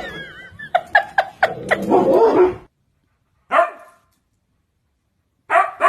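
A dog barking in a quick run of short, sharp yips mixed with a wavering whine, then a single bark after a pause, with barking starting again near the end.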